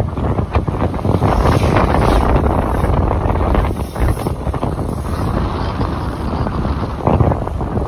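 Loud wind buffeting the microphone of a rider on a moving motorbike: a rough, fluttering rush that drowns out most other sound.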